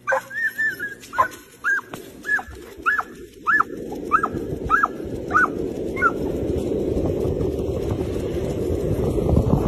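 A dog making about nine short, high whines in quick succession, ending about six seconds in. A rushing noise of wind on the microphone builds beneath them and grows louder toward the end.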